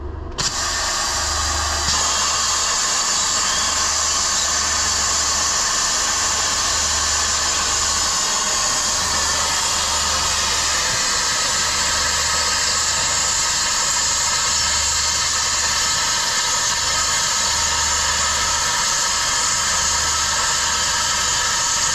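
Small pneumatic right-angle cut-off tool running at full speed, its thin wheel cutting a circular hole through a steel plate: a steady high whine with a strong hiss. It starts just after the beginning and gets a little louder about two seconds in.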